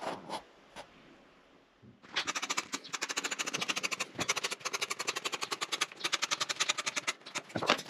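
Scissors cutting through felt upholstery fabric: a fast, even run of snips, about nine a second, starting about two seconds in with a short break in the middle and stopping suddenly at the end.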